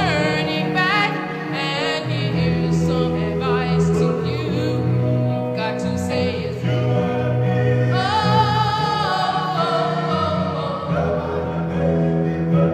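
Background music: a singing voice holds long notes with vibrato over sustained chords.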